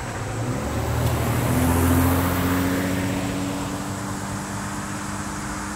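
A car driving past, its tyre and engine noise swelling to a peak about two seconds in and then fading. A low steady hum sets in partway through and carries on.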